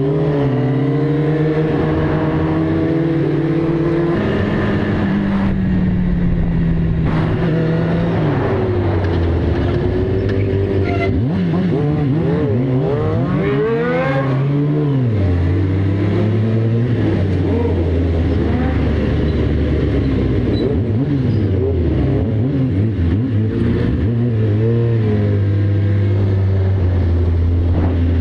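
Several motorcycle engines running hard on a night ride, revving up and down through the gears so their pitches rise, fall and cross each other, over steady road and wind noise.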